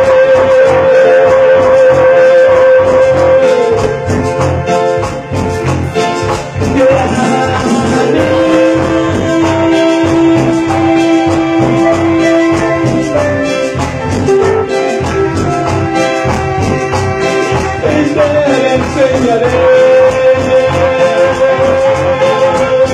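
Live band playing Latin-style music: saxophones and keyboards hold long melody notes over electric bass and guitar with a steady beat.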